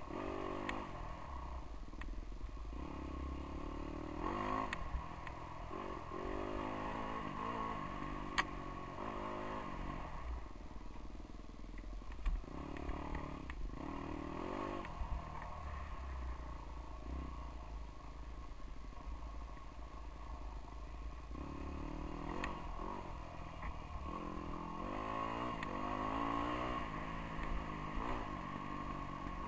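GasGas dirt bike engine revving up and down over and over as the throttle is worked along the trail, with a couple of sharp knocks from the bike clattering over the ground.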